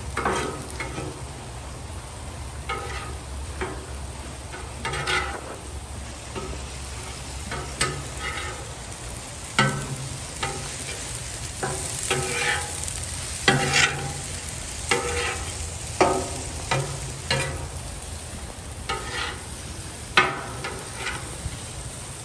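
Sliced steak and diced onions sizzling on a flat-top griddle, while two metal spatulas scrape and clack against the steel surface at irregular moments, roughly once a second, a few strikes ringing briefly.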